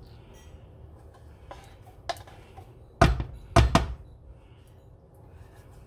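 A can of condensed milk being scraped and tapped out with a silicone spatula: a light knock about two seconds in, then a quick cluster of louder dull thunks a second later.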